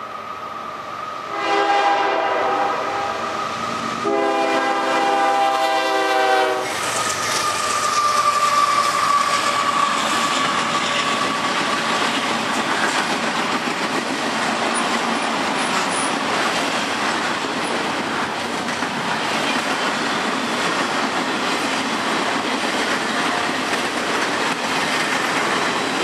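A CSX freight locomotive's air horn blows two long blasts at the grade crossing, ending about six and a half seconds in. The train then runs past at close range: a steady loud rush of locomotive and wheel-on-rail noise as the trailer train goes by.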